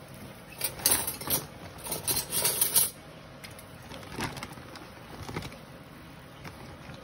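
Plastic bag of shoestring fries rustling and crinkling in bursts for about three seconds as fries are dropped by hand into an air fryer basket, followed by a few light knocks.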